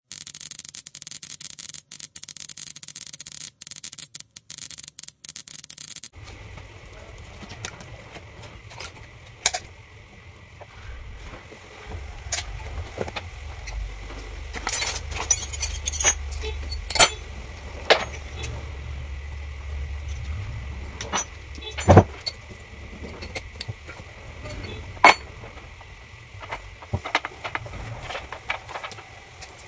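Metal clinks, taps and knocks of spanners and bolts as an old Turaco electric water pump is taken apart, irregular and sharp, over a low hum and a faint steady high tone. It opens with a few seconds of a different, brighter sound that cuts off abruptly.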